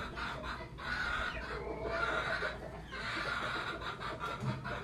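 Faint animal calls over a low background.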